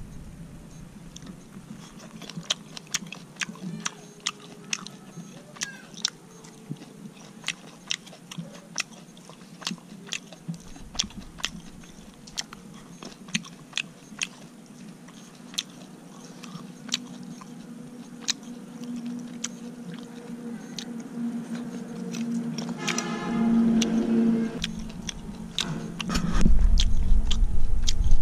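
A person chewing and crunching roasted silkworm larvae, with crisp crunches every half second to a second. A brief pitched hum comes about three-quarters of the way through, and a low rumble rises near the end.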